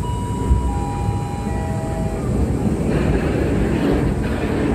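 A three-note falling chime sounds over a steady low rumble. About three seconds in, the running noise of a cable-hauled mountain train car on its rails takes over, with a brighter hiss on top of the rumble.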